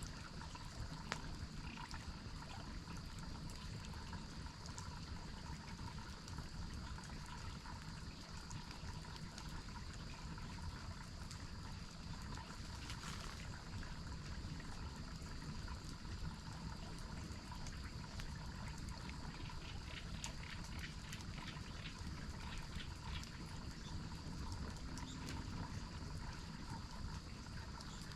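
Steady running water from a waterfall and stream, with animal calls over it and a run of rapid ticking a little past the middle.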